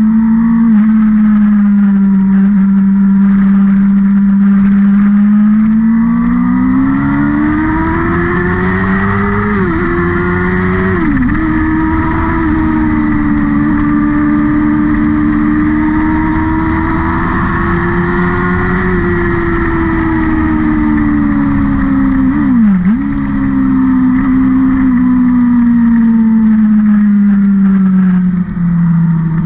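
A vehicle engine runs loud and continuously under load. Its pitch climbs and holds high, dips sharply for a moment three times, and falls away near the end.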